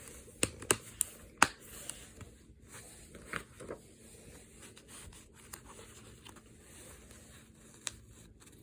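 Plastic movie disc case being handled: a quick run of sharp clicks in the first second and a half, softer rustling and scraping after, and one more click near the end.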